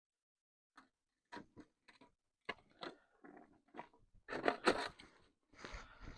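Irregular crunching and scraping of snow and ice in short, uneven bursts, louder and closer together in the second half.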